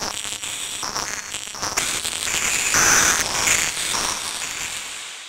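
Electronic noise music: dense crackling static with short high whistling tones, choppy and stuttering, swelling about three seconds in and fading out over the last second.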